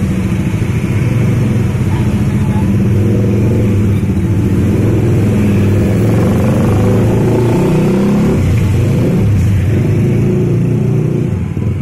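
Small motor scooters and motorcycles passing close by in steady street traffic, their engines running continuously, with engine pitch rising and falling as riders go past.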